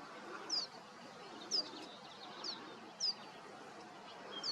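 A songbird repeating a short, high, downward-slurred call about once a second, over a steady background hiss.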